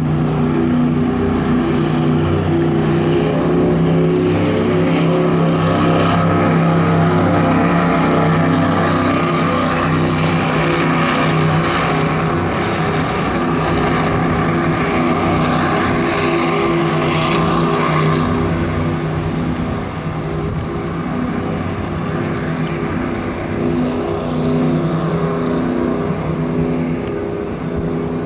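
Powerboat engine running at high speed, a steady deep note with a rushing hiss of spray and wake over it; it drops slightly in level in the last third.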